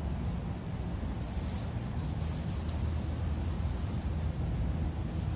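A fishing reel being cranked, a dry rasping run of fine ticks that starts about a second in and stops about three seconds later, over a steady low rumble.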